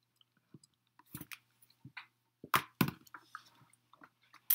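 Scattered short clicks and small knocks close to the microphone, a few of them louder, over a faint steady hum.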